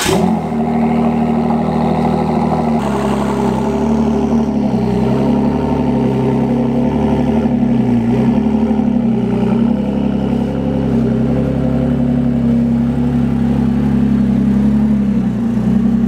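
2018 Ford GT's twin-turbo V6 fires up right at the start, then runs at a steady idle with small wavers in pitch as the car creeps slowly out of the garage.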